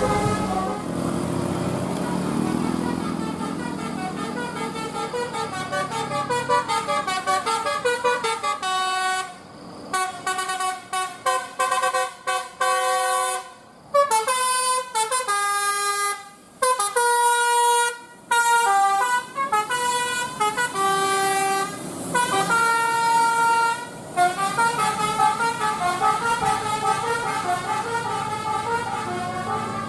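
A bus's multi-tone telolet 'basuri' horn playing a tune in a run of short notes at changing pitches, with brief breaks between phrases.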